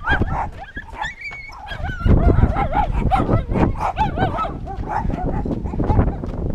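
Dog barking over and over in quick succession, louder and more rapid from about two seconds in.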